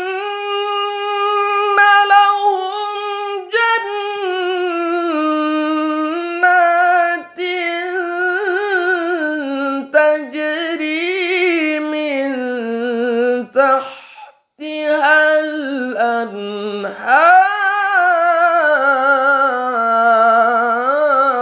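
A man's solo voice chanting Quran recitation (tilawah) in maqam Rast, drawing out long melismatic notes with vibrato. The melody drifts gradually lower, breaks off briefly for a breath about two-thirds through, then climbs again and descends once more.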